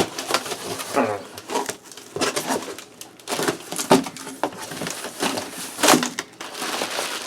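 Shipping box packaging being handled as a computer is pulled out: cardboard and packing material rustling and scraping, with a few short squeaks.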